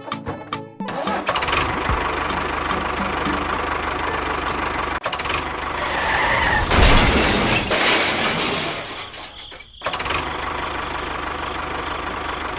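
A small engine starting and running with a fast, steady beat; it grows louder about six seconds in, cuts out briefly near ten seconds, then runs on.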